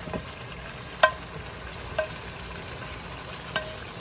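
Fried chicken pieces being scraped from a hot cast-iron skillet into a pot of curry and potatoes, with a steady sizzle of hot oil. About four sharp clinks of the cookware, each ringing briefly, come roughly a second apart.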